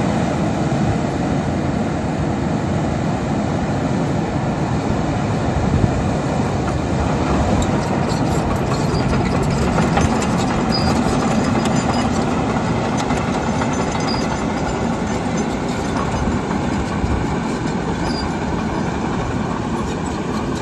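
Caterpillar D6K2 LGP crawler dozer with its diesel engine running as it drives across gravel, its steel tracks clanking and squeaking. The sound is loud and steady, with faint high clicks in the middle.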